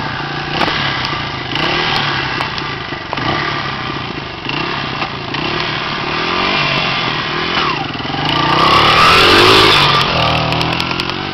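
Honda XR80 dirt bike's small four-stroke single-cylinder engine running and revving up and down, getting loudest about nine seconds in as the bike rides off, then fading.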